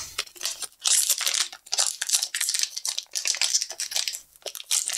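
A blind-box figure's sealed plastic bag being crinkled and torn open by hand, with quick irregular crackles throughout.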